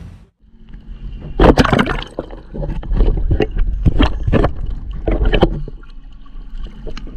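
Water splashing and sloshing in irregular loud surges, several of them between about one and a half and five and a half seconds in.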